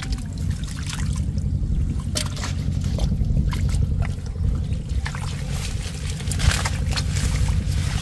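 Shallow water splashing and trickling in many short irregular splashes as hands work through it searching for fish, over a steady low rumble; the splashing grows busier about two-thirds of the way in.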